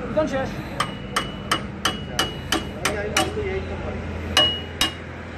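Hand hammer striking metal at the front end of a quad bike, by the front suspension and steering linkage: eight even blows at about three a second, then two more after a short pause. Each blow rings briefly.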